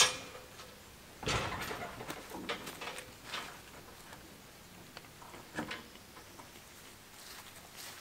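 A sharp click, then a cluster of knocks and rattles about a second in, followed by a few scattered taps and one more knock.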